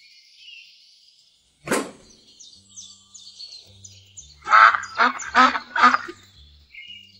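Soundtrack of light background music with faint bird chirps. About two seconds in comes a single sharp swish, and in the second half four loud, short pitched calls follow each other about half a second apart.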